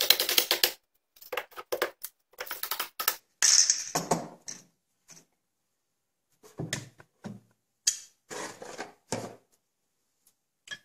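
Short runs of rapid, evenly spaced clicking from a hand screwdriver working screws into a shotgun receiver. A scrape follows near the middle, then scattered clinks and knocks of small metal parts being handled on a wooden workbench.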